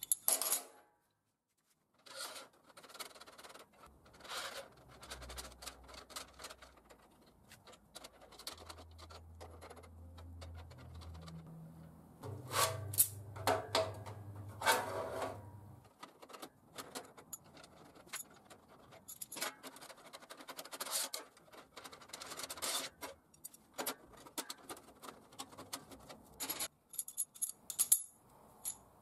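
Thin steel rods clinking, knocking and rubbing against one another and on a perforated steel workbench as a rod grill frame is handled and fitted together, in irregular scattered clinks with a cluster of louder ones in the middle.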